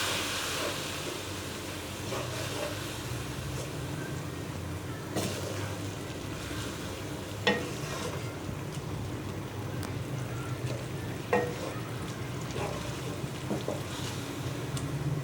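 Dal and masala sizzling in a pot just after a cup of water has gone in, while a spoon stirs it. The metal spoon clinks sharply against the pot three times, at about 5, 7 and 11 seconds in.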